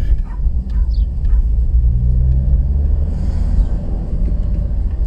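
Car driving along a paved road, heard from inside the cabin: a steady low rumble of engine and tyres, with a faint engine hum coming up in the middle.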